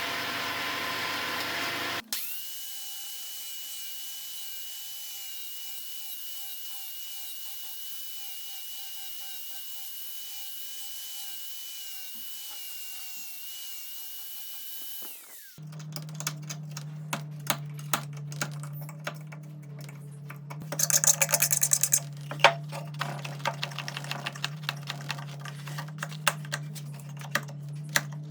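Woodworking power tools in several short runs. First a loud hiss, then a steady motor whine that winds down in pitch after about fifteen seconds. Then a low hum with many sharp clicks and knocks, and a loud hissing burst partway through.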